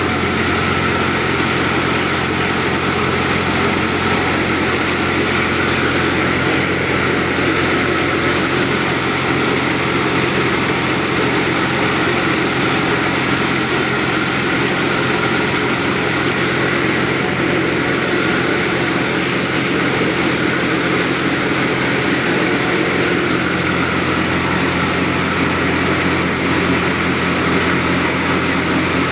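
Grain-processing machine, a wheat cleaner or feed grinder, running steadily with a constant hum and rushing noise.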